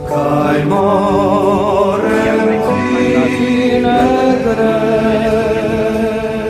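Music with singing voices holding long notes, some of them wavering, that change pitch every second or so.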